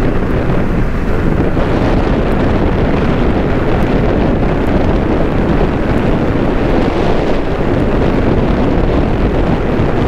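Wind buffeting the microphone of a moving motorcycle, a steady loud rush with the motorcycle's running and road noise beneath it.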